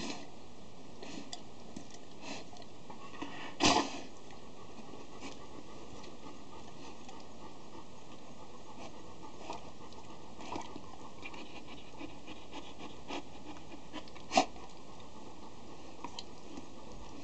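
Akita puppy mouthing and licking a person's hand, with quiet panting and faint scuffling, broken by a few short knocks, the loudest a few seconds in and a sharp one late on.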